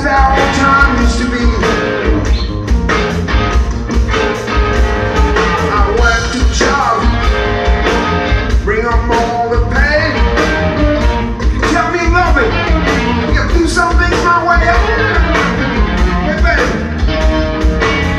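A blues-rock trio playing live: lead electric guitar with bending notes over electric bass and a drum kit keeping a steady beat.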